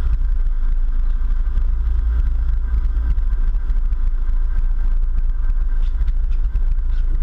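Sportfishing boat's engines running under way as a steady low rumble, with churning water from the wake.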